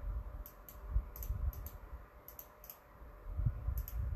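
Irregular light typing clicks, a few short taps at a time with gaps between, over a low rumble with a couple of dull bumps.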